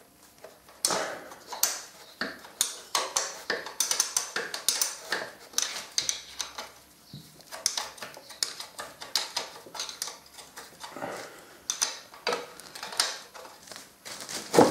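Metal spanner clinking and scraping on bolts under a Triumph 650's engine as they are worked loose, in quick irregular taps starting about a second in.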